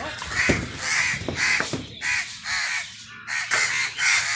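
Crows cawing: a quick run of harsh caws, about two a second, with a short pause partway through before the calls resume.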